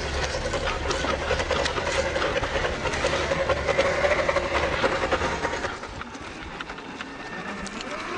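Traxxas TRX4 RC crawler's electric motor and geared drivetrain whining steadily as it crawls, with its tyres crunching and clicking over loose stones and dry leaves. The whine is loudest in the middle and drops away at about six seconds in.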